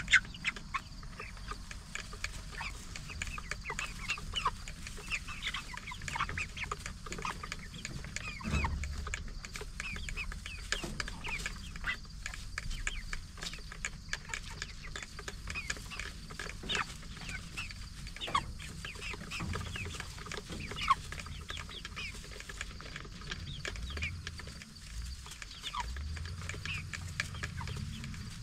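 A flock of 44-day-old Cornish Cross broiler chickens clucking and chirping, with many short calls overlapping throughout.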